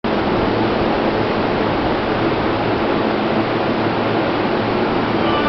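Loud, steady rushing roar of a train running along the platform of an underground station.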